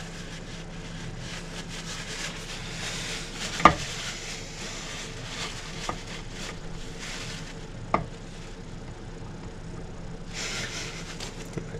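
Paper towel rustling and rubbing as engine parts are wiped by hand, with two light clinks of metal a few seconds apart.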